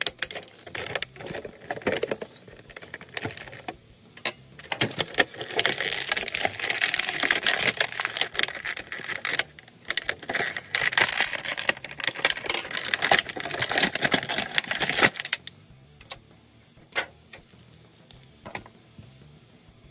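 Clear plastic blister packaging crinkling and crackling as an action figure is worked out of its tray, with many sharp clicks. The crackling stops about three-quarters of the way through, leaving only a few light clicks.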